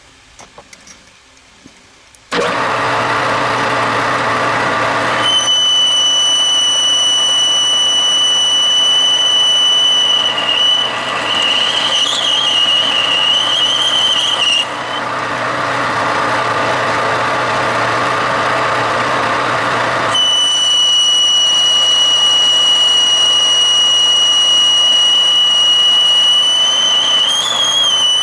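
A machine tool starts running about two seconds in, with a boring bar cutting the bore of an R8 shank. Twice a steady, high squeal sings out over the machine's running sound as the bar cuts, about ten seconds each time, wavering briefly near its end. The squeal is the ringing typical of boring-bar chatter.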